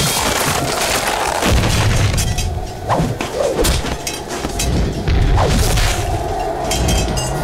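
Cartoon battle sound effects: heavy booms and thuds over a low rumble, with three whooshes falling in pitch as bodies are flung through the air.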